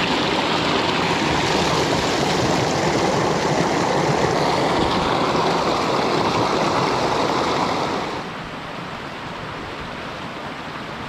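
Small mountain stream cascading over rocks, a steady rushing hiss heard up close, dropping to a quieter rush about eight seconds in.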